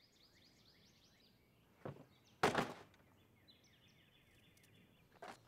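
Plastic storage bins knocking down into a pickup truck's bed: a light knock about two seconds in, then a louder thump, and another knock near the end. Small birds chirp in between.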